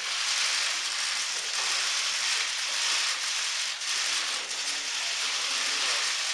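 Many camera shutters firing in rapid bursts at once, a dense, steady clatter of clicks that cuts off near the end.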